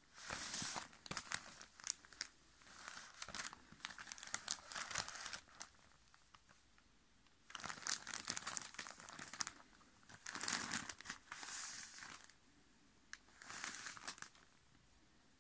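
Thin wrapping sheet crinkling and crackling as a football is turned and pressed on it, with hands brushing the ball's surface. It comes in four bouts with short pauses: a long one for about the first five seconds, then three shorter ones.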